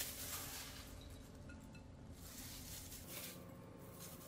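Faint, quiet handling sounds of dressed salad being tipped from a glass bowl into a serving dish and spread by gloved hands.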